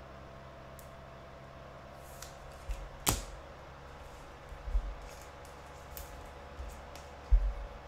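Trading cards and a clear plastic card holder being handled and set down on a tabletop: several soft thumps and one sharp click about three seconds in, over a faint steady hum.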